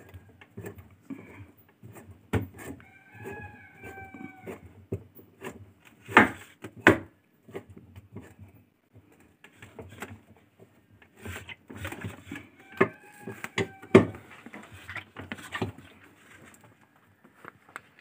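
Hand tool clicking and knocking on the gearbox mounting bolts of a top-load washing machine as they are tightened, in irregular taps with a few louder knocks. Twice, about ten seconds apart, a brief high held tone of about a second and a half sounds.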